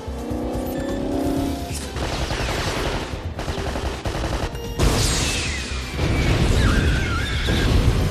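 Action-film soundtrack: film score over gunfire, then a sudden loud blast about five seconds in as a roof-top missile hits a parked car and throws it into the air, followed by a heavy rumble.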